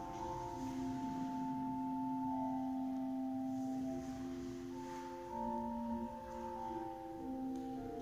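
Pipe organ playing a slow, quiet passage of sustained chords: several steady notes held at once, with the voices moving one at a time over a long-held lower note.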